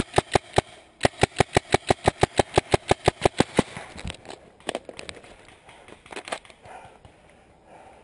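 Magfed paintball marker firing: three spaced shots, then a rapid even string of about twenty shots at roughly seven a second that stops about three and a half seconds in. A few scattered sharp clicks follow.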